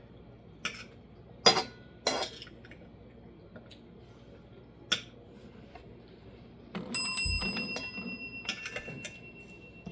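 A desk service bell rung by a cat: a few light taps and clicks, then two rings about a second and a half apart, the second one ringing on.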